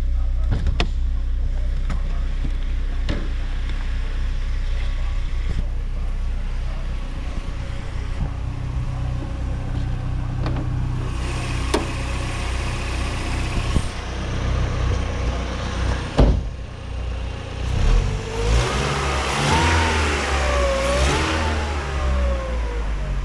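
A 1999 Mercedes SLK230's supercharged 2.3-litre four-cylinder idling steadily just after a cold start, with a few sharp clicks over it. A wavering higher-pitched sound rises and falls over the idle near the end.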